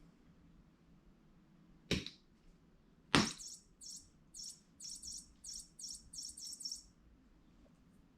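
Electronic chirping toy bird: two sharp knocks, then a run of about ten short, high chirps over some three and a half seconds.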